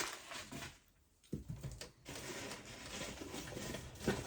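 Packing material rustling and crinkling as wrapped crystals are handled and unwrapped, with a short silent gap about a second in, then a steady rustle with small ticks.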